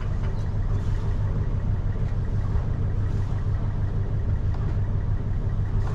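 Sailing yacht's inboard engine running at low speed under way, a steady low rumble.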